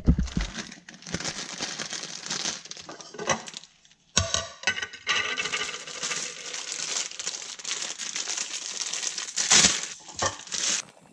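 Kitchen handling noise from making noodle soup: crinkling and rustling of packaging mixed with small clinks and clatter, with a brief lull about four seconds in and a louder burst near the end.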